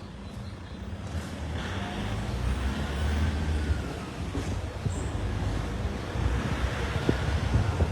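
Motor vehicle traffic passing on the road, a low rumble that swells about three seconds in.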